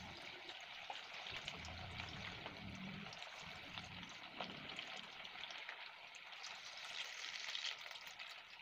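Marinated chicken kebab pieces deep-frying in hot oil: a steady, quiet sizzle with many small crackles, as more pieces go into the oil.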